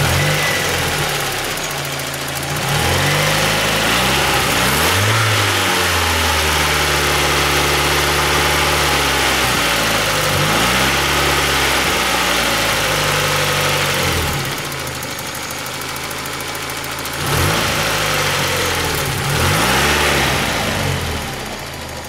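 1991 Mazda Miata's 1.6-litre four-cylinder engine revved by hand from the throttle cable at the throttle body. It rises and falls several times, is held up for a few seconds in the middle, drops back toward idle, and is blipped twice near the end. The revs pick up with no hesitation showing, which seems pretty normal.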